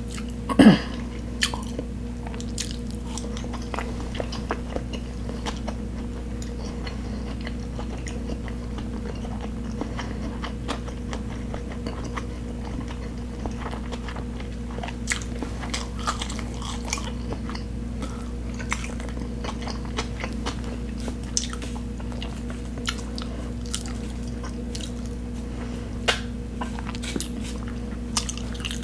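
Close-miked chewing and biting: small wet mouth clicks and crunches scattered throughout, over a steady low hum. About a second in comes one louder sound that falls in pitch.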